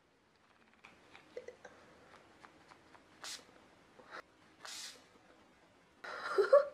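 Pump of an Urban Decay All Nighter makeup setting spray bottle being worked: a few soft clicks, then two short hisses of mist about a second and a half apart, the pump finally spraying after it had seemed broken. A short vocal sound comes near the end.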